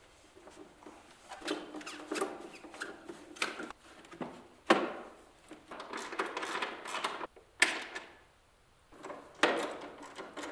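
Hard plastic intake airbox parts knocking, clacking and rattling as they are worked loose and handled in the engine bay, with a few sharp clacks about five, seven and a half, and nine and a half seconds in.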